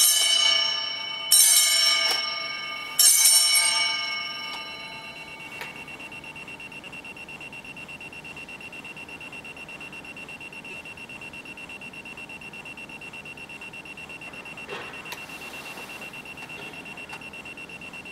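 Altar bell struck three times at the elevation of the host after the consecration. Each stroke rings out and dies away over a few seconds, and a faint high ring lingers afterwards.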